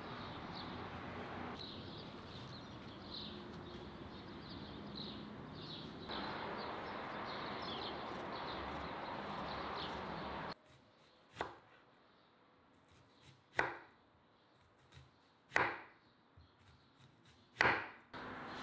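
Outdoor background with birds chirping, then, after about ten seconds, a kitchen knife slicing a red onion on a wooden cutting board: four sharp cuts about two seconds apart, each ending in a knock of the blade on the board.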